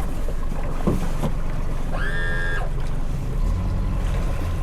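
Boat engine running under way, a steady low drone, with a brief high-pitched tone about two seconds in.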